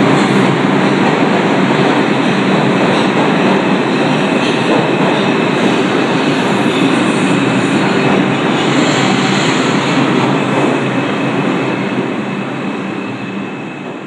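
New York City Lexington Avenue Line subway train pulling out of the station: a loud, steady rumble of wheels and running gear on the rails. It fades over the last couple of seconds.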